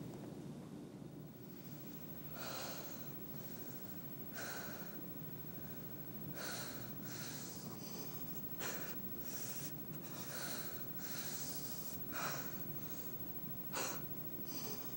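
A man's strained, heavy breathing in pain: a run of short, sharp breaths, roughly one a second, over a steady low hum.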